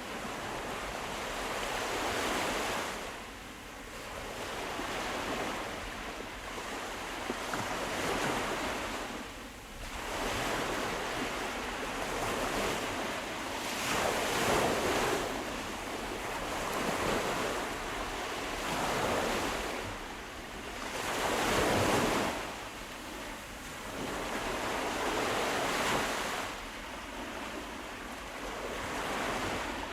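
Sea waves washing in and breaking on a shore, a continuous hiss that swells and eases every two to three seconds, with wind on the microphone.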